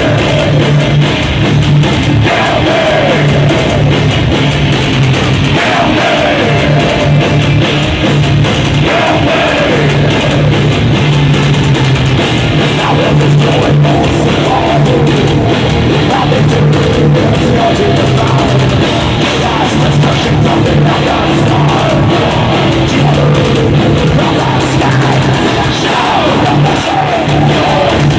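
Heavy metal band playing live and loud: distorted electric guitars, bass and drum kit, with sung vocals at times.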